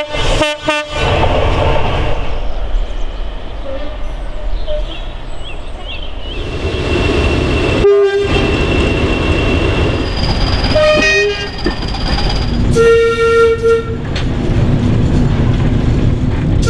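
Diesel locomotive horn sounding at the start, then the locomotive running past with engine and rail noise. More train horn blasts follow: a short one about 11 seconds in, a longer one about 13 seconds in, and another starting near the end.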